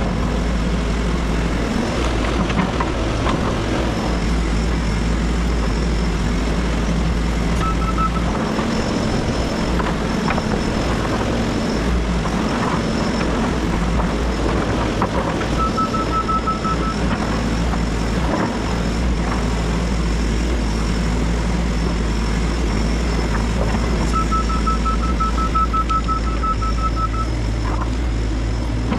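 Crawler excavator's diesel engine running steadily at work. A rapid beeping alarm sounds in short runs several times, the longest about three seconds.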